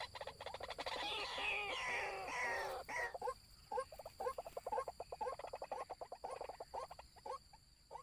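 White-breasted waterhens calling: about three seconds of dense, overlapping calls, then a steady run of short repeated notes, about two or three a second.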